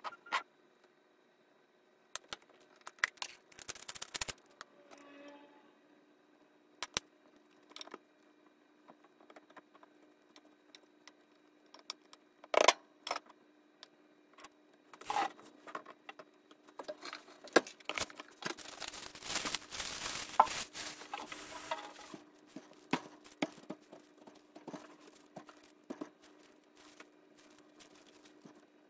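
Food-prep handling sounds: scattered sharp taps and knocks of a knife, a glass jar and utensils on a plastic cutting board, with a denser stretch of scraping and rustling a little past the middle. A faint steady hum runs underneath.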